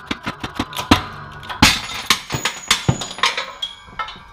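A shop press forcing a corroded, seized wheel bearing out of an Audi 5000 front strut housing: a series of sharp metallic cracks and bangs as the bearing breaks loose, the loudest about one and a half seconds in and ringing on.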